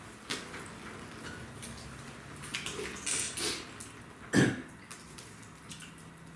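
Scattered sharp crackles and clicks of a wood bonfire, with one short cough a little over four seconds in.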